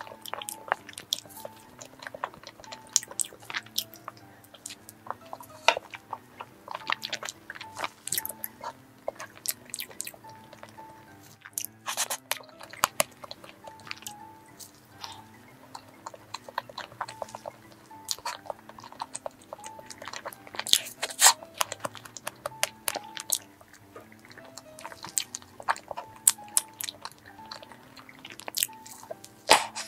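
Close-miked eating of soft strawberry cream cake: many short wet mouth clicks and chewing sounds, with quiet background music.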